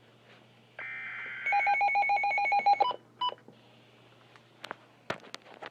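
Electronic alert tones from a device speaker: a steady chord of tones, then a fast, repeating pattern of beeps for about a second and a half, one short beep, and then a few sharp clicks near the end.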